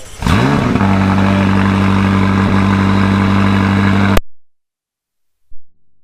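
A car engine starting: it fires and its revs rise quickly, then it holds a steady, loud fast idle. The sound cuts off suddenly about four seconds in.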